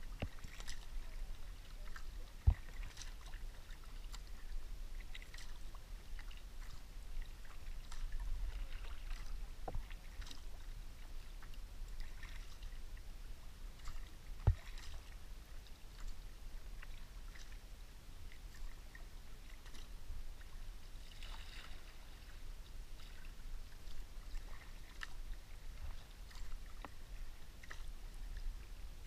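Kayak being paddled: a double-bladed paddle dipping and splashing, water lapping at the hull with a low rumble underneath. Two sharp knocks, a couple of seconds in and about halfway through, are the loudest sounds.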